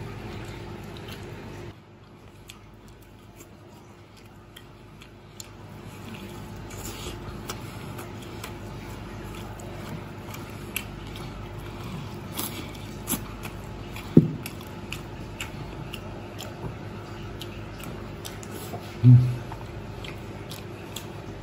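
Close-up chewing and crunching of crispy fried chicken legs coated in starch, with many small sharp crunches over a steady low hum. Two brief louder sounds stand out, about 14 and 19 seconds in.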